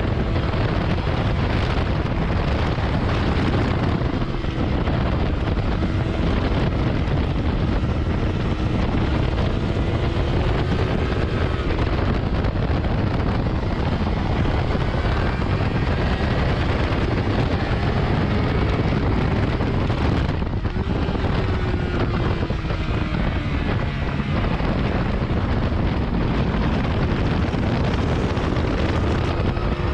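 Wind rushing over the action camera's microphone on a 2019 Yamaha R6 at track speed, with the bike's inline-four engine underneath, its pitch rising and falling with throttle and gear changes.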